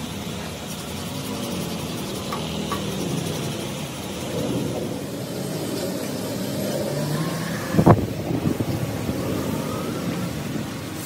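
Engine noise of passing motor vehicles running steadily, with a single sharp knock about eight seconds in.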